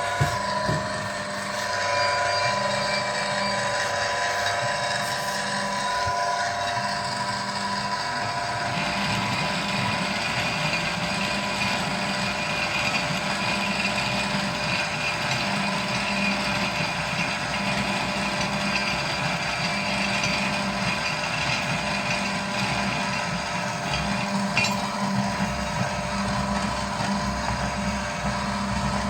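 STQG 8C hydraulic pipe cutting machine running steadily, its electric motor turning the pipe with a low hum and a steady whine. About nine seconds in, a higher hiss joins and continues.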